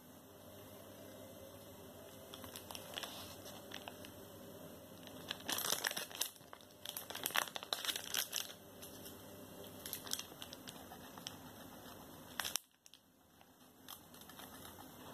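Plastic cheese packaging crinkling and crackling in short irregular bursts as it is handled, the loudest bunches coming about halfway through.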